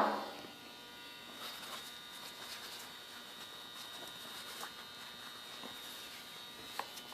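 Faint steady electrical hum, with a few soft taps and rubs from handling. A loud sudden sound at the very start dies away within about half a second.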